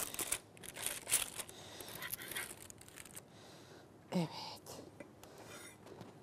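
Baking paper crinkling and tearing as it is peeled off freshly baked, still-hot buns: a run of irregular rustles and crackles for about three seconds, then fainter handling.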